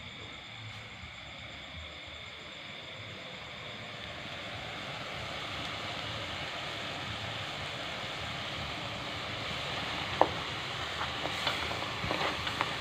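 Pot of braised chicken in sauce simmering on the cooktop with a steady hiss that slowly grows louder, with a sharp click and a few light knocks of the spoon on the pot near the end.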